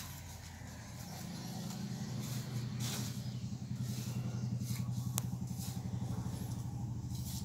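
A motor engine running steadily with a low, pulsing hum that grows louder from about a second in, mixed with a few brief scrapes of a hand trowel digging soil.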